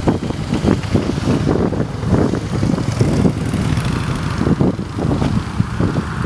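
Wind buffeting the microphone: a loud, uneven low rumble that rises and falls irregularly.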